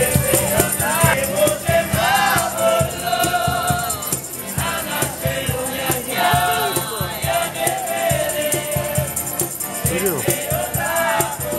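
Live street band: several men singing together over strummed acoustic guitars, an accordion and a cajón keeping a steady beat.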